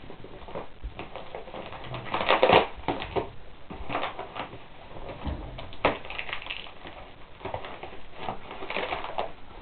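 A knife cutting into a cardboard shipping box, with cardboard and packing tape scraping, crackling and tearing in irregular bursts; the loudest rip comes about two seconds in.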